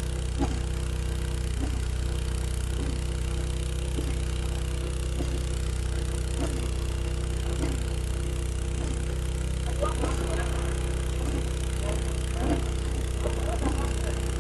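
Borehole drilling rig's engine running steadily, with a regular knock a little more than once a second.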